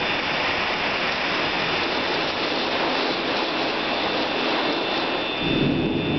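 Tornado wind outside, heard through the windows: a loud, steady rushing noise, with a deeper surge about five and a half seconds in.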